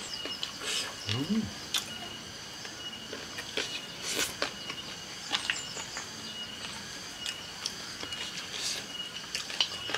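Close-up chewing and crunching of raw vegetables and leaves, crisp crunches scattered irregularly throughout, with a short rising hum from the eater about a second in. A steady high insect trill comes and goes in the background.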